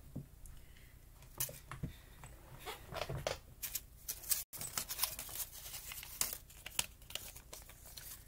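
Paper banknotes being handled: rustling and crinkling of bills in the hands, with many short crackles. The sound drops out completely for an instant about halfway through.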